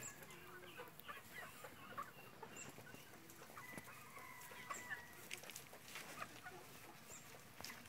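Chickens clucking faintly, with one drawn-out higher call about four seconds in.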